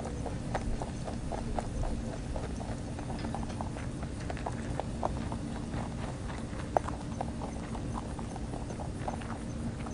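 Rabbits chewing dry feed pellets: a rapid, uneven run of small crisp crunches, several a second, with one sharper crunch about two-thirds of the way through.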